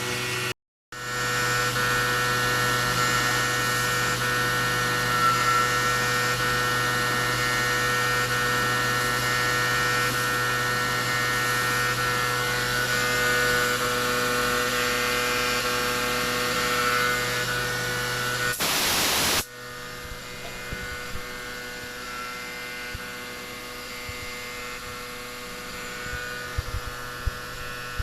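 Okuma GENOS M560R-V vertical machining center running with a steady machine hum and whine made of several fixed pitches, broken by a brief dropout just under a second in. About 19 seconds in, after a short burst of noise, it drops to a quieter steady hum with a few light ticks near the end.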